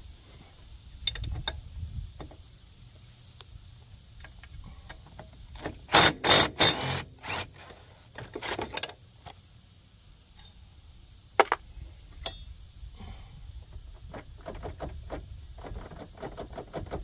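Hand tools working on the metal parts of an ATV's front axle and hub: scattered clicks and clinks, a loud run of about five quick strokes about six seconds in, and a single sharp clink near the middle.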